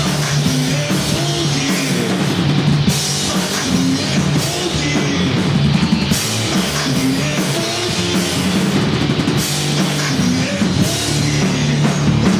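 Rock band playing live, with a drum kit and guitars over a steady bass line.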